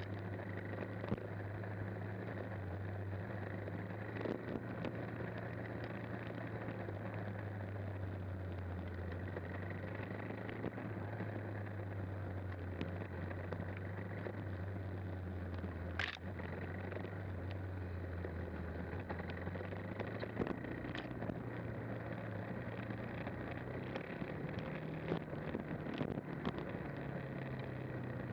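KTM 390 Adventure's single-cylinder engine running at low, fairly steady revs on a dirt trail ride, its pitch rising a little near the end. A few sharp clicks and knocks break in, the loudest about halfway through.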